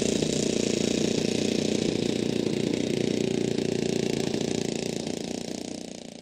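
Engine of a giant-scale radio-controlled Stinson model airplane running steadily as the plane taxis on grass, fading out near the end.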